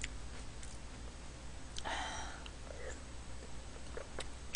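Faint sounds of a person eating a spoonful of rice-cake soup, with a brief soft noisy sound about two seconds in and a few small clicks.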